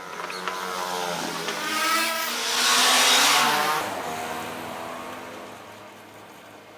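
Sewing machine running, its whine rising in pitch as it speeds up, loudest about three seconds in, then falling away as it slows down.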